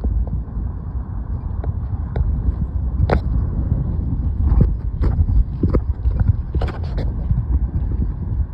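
Steady low rumble of wind buffeting the microphone, with a handful of sharp knocks and clicks, like handling or footsteps, from about three seconds in.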